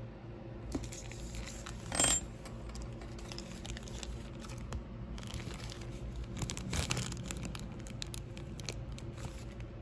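A metal piping tip strikes the countertop with one short ringing clink about two seconds in, followed by light clicks and the crinkling of a clear plastic bag being handled for piping.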